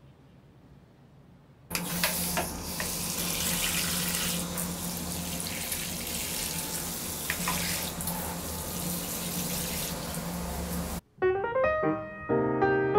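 Water spraying from a hand-held hose spray nozzle onto potted plants: a steady hiss that starts about two seconds in and cuts off suddenly near the end, where piano music begins.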